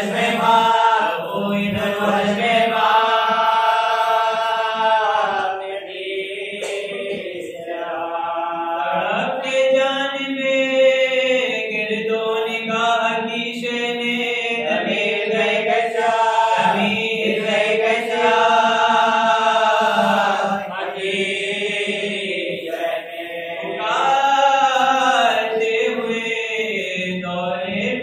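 A man's voice chanting a devotional mourning recitation into a microphone, in long melodic phrases with held notes, breaking off and starting again every few seconds.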